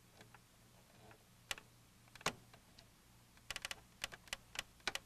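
Faint, sharp plastic clicks and taps of a hard drive's ribbon-cable connector being worked onto the pin header of a Macintosh Portable logic board: a couple of single clicks, then a quick run of them in the last second and a half, over a faint low hum.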